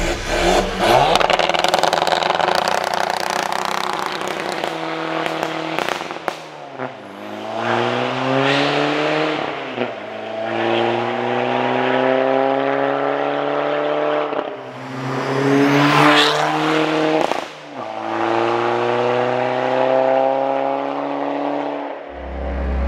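The tuned four-cylinder 1.9 TDI diesel engine of a stage-3 Audi A4 B6 Avant, fitted with a bigger turbo, accelerating hard through the gears. The engine note climbs and then drops sharply at each of several upshifts.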